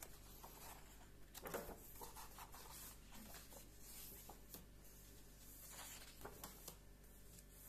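Faint paper rustling as the pages of a large book are turned, with a few soft brushes of paper about a second and a half in and around six seconds in.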